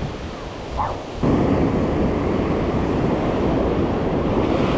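Ocean surf and wind blowing across the microphone, with no distinct tones. The noise jumps suddenly much louder a little over a second in and stays loud.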